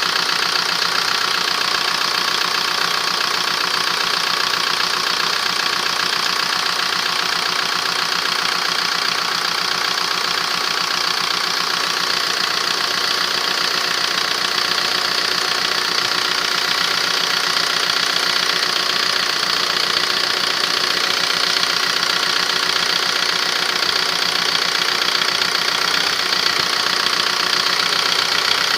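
Audi 1.9 TDI four-cylinder diesel idling steadily with its diesel clatter, while the injection pump's idle fuel quantity is being set to around 4 milligrams.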